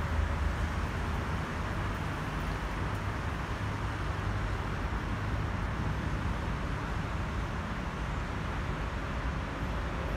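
Steady distant rumble of an Airbus A320neo's CFM LEAP-1A turbofan engines as the airliner climbs away overhead.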